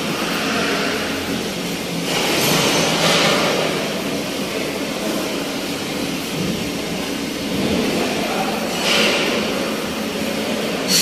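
Steady loud din of slaughterhouse machinery, a continuous rumble and hiss, with two short hissing surges, one about two to three seconds in and one near nine seconds.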